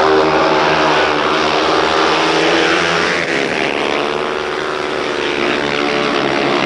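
A pack of speedway motorcycles racing round the track, their single-cylinder methanol engines running together. Several engine notes rise and fall across one another as the bikes pass.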